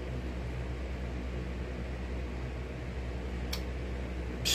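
Steady low electrical hum with a light hiss from running equipment in a small room, with one light click about three and a half seconds in.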